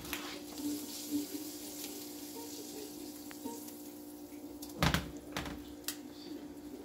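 Chicken pieces sizzling in hot oil in a frying pan, a steady hiss, with one loud clunk about five seconds in as the pan is set back down on the stove's burner.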